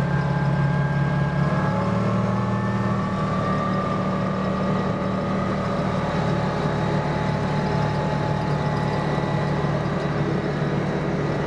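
Side-by-side UTV engine running steadily while driving along a paved road, heard from inside the open cab, with a few fainter steady higher tones above the low engine note.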